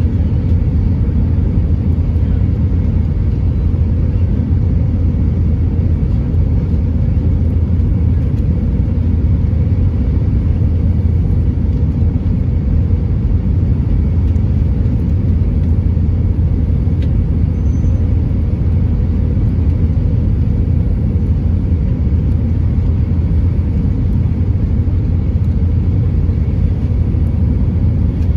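Airbus A320 cabin noise on final approach, heard inside the cabin at a window seat: a steady, loud low rumble of the engines and rushing air over the airframe with the flaps extended.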